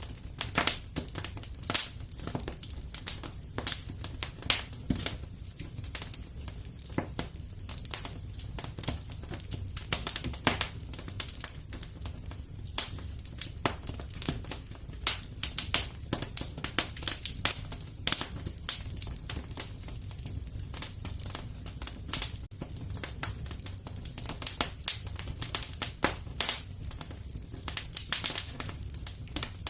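Wood fire crackling and popping in a fireplace: dense, irregular sharp snaps over a steady low rumble of the flames.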